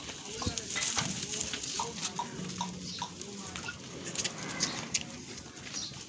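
Pen ambience of a herd of goats moving about on dirt and dry fodder: scattered shuffles and knocks, with short bird-like chirps and faint voices in the background.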